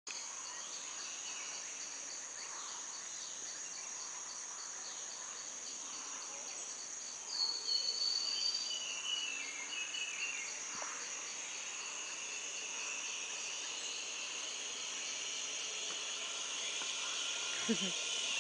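Rainforest insect chorus: a steady high-pitched buzzing with a rapid pulsing trill over it. About seven seconds in, a louder high call comes, followed by a series of falling notes.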